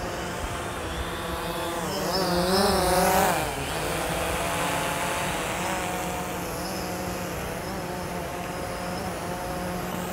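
DJI Phantom quadcopter's propellers buzzing in flight as it carries a fishing bait out. The pitch wavers and it is loudest about two to three seconds in, then it settles to a steady hum.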